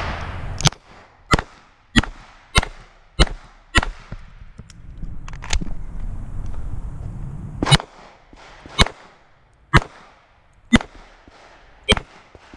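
Beretta 92 9mm pistol fired one-handed: about a dozen single shots, six in quick succession, then a pause, then slower shots about a second apart.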